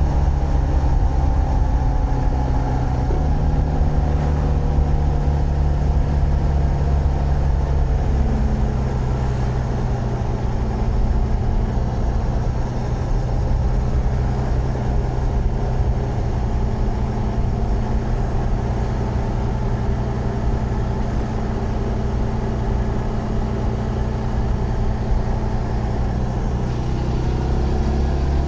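Zontes GK 125's single-cylinder 125cc engine running at a steady cruise under a heavy low rumble of wind and road. The engine note steps up about three seconds in, then holds, easing slightly lower through the middle.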